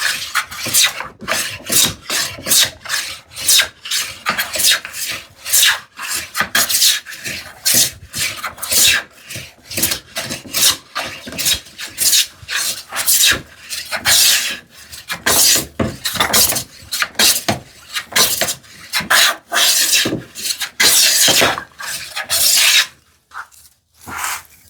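Hand plane taking repeated shavings along a wooden board, one rasping stroke after another at a little over one a second, as the stock is planed down to a gauge line; the strokes stop near the end.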